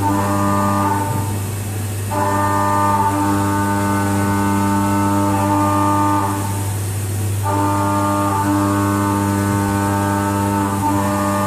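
Background music: sustained organ-like chords over a steady low drone, fading and changing about every four to five seconds.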